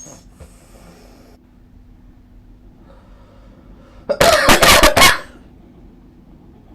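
A sleeping person, wearing a Nastent nasal stent, makes one loud, juddering burst of breath noise about a second long, about four seconds in, over a faint steady hum.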